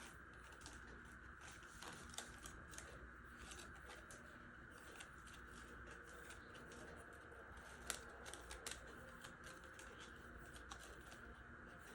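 Near silence: faint room tone with scattered soft clicks and taps, one a little louder about eight seconds in.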